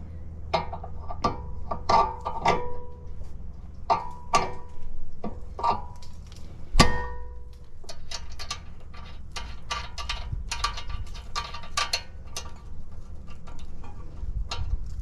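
Metal clinks and ringing taps of a hand wrench against a nut and the steering knuckle while a nut is worked on a brand-new, stiff ball joint or tie rod end. The clinks come irregularly, one or two a second at first and closer together in the second half, with the loudest clank about seven seconds in.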